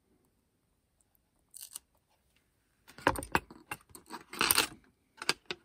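Handling noises from metal tweezers working small feathers on a cardboard board: a brief scrape, then a run of sharp clicks and clinks with a short rustle in the second half.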